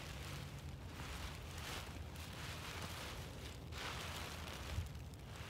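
Parachute canopy fabric rustling in short bursts, several times, as it is pressed flat and folded to push the air out, over a steady low rumble.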